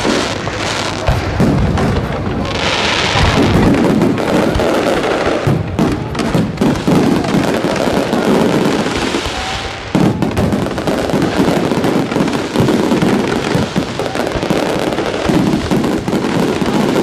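Fireworks display: shells bursting in dense, rapid succession, with crackling and hissing between the bangs, and music playing underneath.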